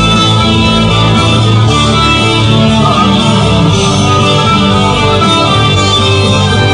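Live band playing a song with guitar, loud and steady throughout.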